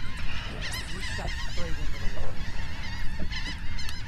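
Birds calling, with many short chattering calls scattered throughout over a steady low rumble.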